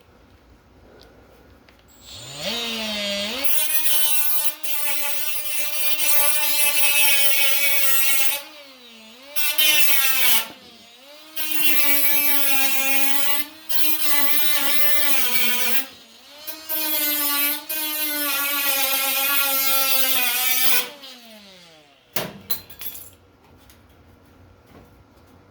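Handheld power grinder working on sheet metal: it spins up with a rising whine, then runs in several long passes with brief gaps where the pitch sags and recovers, and winds down near the end.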